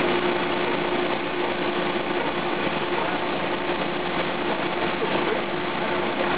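Pet food extruder line running steadily: electric motors and the extruder screw giving a continuous mechanical whir with a steady hum.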